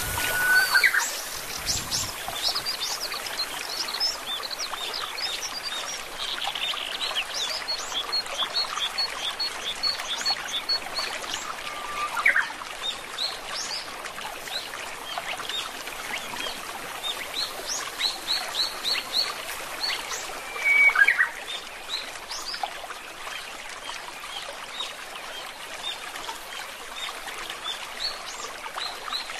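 Many small birds chirping over a steady rush of running water, with a few louder, lower whistled calls: one about a second in, one near the middle and one about two-thirds through.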